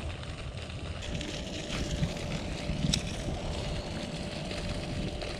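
Outdoor background of uneven low rumble with a faint steady hum, and a single sharp click about three seconds in.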